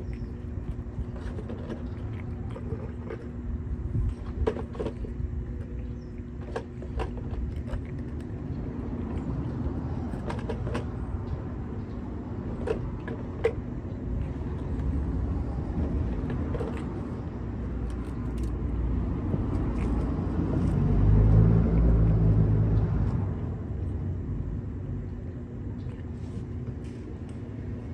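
Steady low outdoor urban rumble with a faint hum and scattered small clicks and taps, and a vehicle passing that swells and fades about three quarters of the way through.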